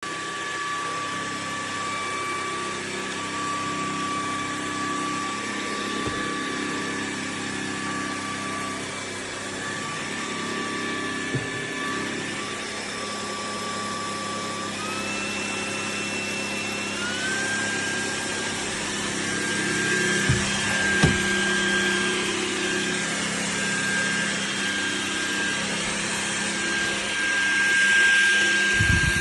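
Electric appliance motor and fan running steadily with a whine. The whine steps up in pitch twice, about halfway through, and there are a few knocks in the second half.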